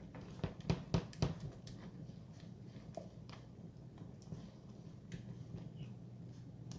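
Utensil knocks and light scraping in a saucepan as cheese sauce is stirred, a few sharper knocks in the first second and a half, then fainter ticks over a steady low hum.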